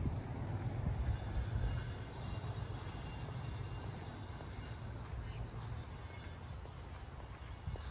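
Low, steady rumble of a passing vehicle, loudest in the first couple of seconds and then easing off a little.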